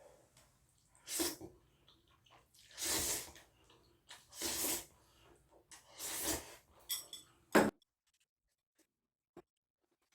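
A person making short, sneeze-like breathy bursts about every one and a half seconds, with a sharper, louder one near the end, after which the sound cuts out abruptly.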